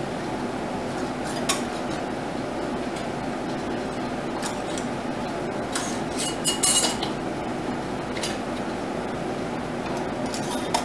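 Metal canning bands being screwed finger tight onto glass mason jars: scattered light clinks and scrapes of metal on glass, with a longer scrape about six to seven seconds in, over a steady background noise.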